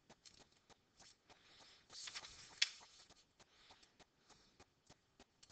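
Near silence: faint room tone with a series of soft, evenly spaced ticks, and a brief rustle ending in a sharper click about two and a half seconds in.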